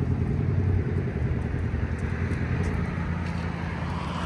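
A road vehicle's engine running with a steady low hum that slowly fades, while a tyre-like hiss grows near the end.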